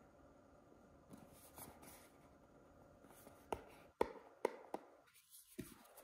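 Faint handling sounds: light rubbing and rustling, then four sharp clicks in quick succession a little past halfway.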